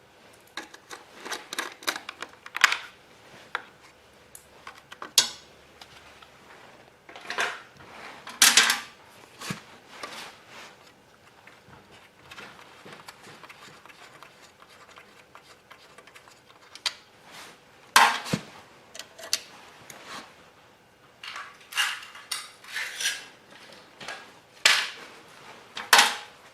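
Hand tools and small metal parts of a Honda EM3000 generator clinking and knocking in scattered, irregular strikes as it is unbolted to reach the carburetor.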